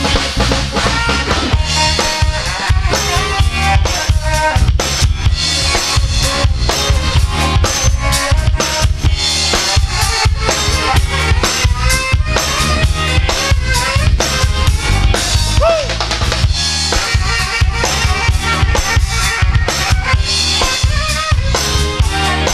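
Live rhythm-and-blues band playing an instrumental stretch with no vocals: the drum kit drives a steady beat of kick drum and snare with rimshots over bass and other instruments.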